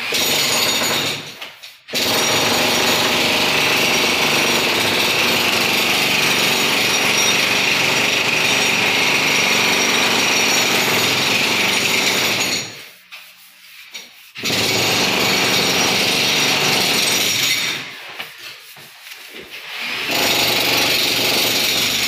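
Compressed-air paint spray gun hissing as it sprays wood finish, in three bursts: a long one of about thirteen seconds, a shorter one of about three seconds, and a brief one near the end, each stopping suddenly when the trigger is released.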